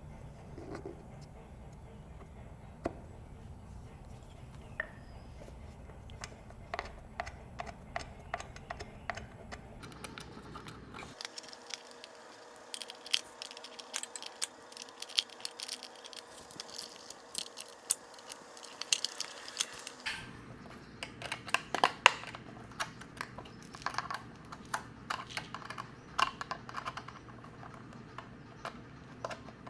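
Hand work on a small engine: irregular clicks, taps and scrapes of plastic and metal parts being handled and fitted, most likely the generator's air filter and its cover going back on. The clicks come thicker in the second half, with one sharper knock a little past the middle.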